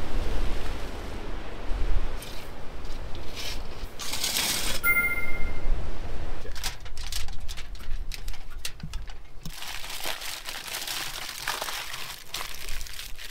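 Wind rumbling on the microphone for the first several seconds. Then aluminium foil crinkling and crumpling in many small sharp rustles as food is wrapped in it.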